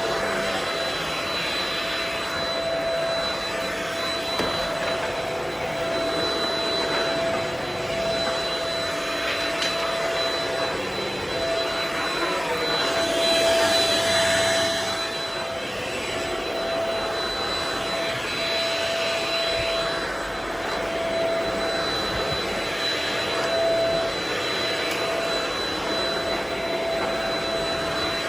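Vacuum cleaner running steadily with a constant whine, louder for a moment about halfway through.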